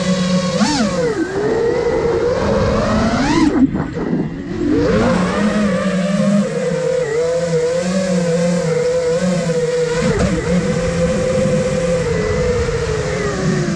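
Brushless motors and propellers of a 5-inch FPV quadcopter, an iFlight Nazgul Evoque F5, whining as heard from its onboard camera, the pitch rising and falling with the throttle. A sharp rise about three and a half seconds in is followed by a brief drop, then a steadier whine with small wobbles.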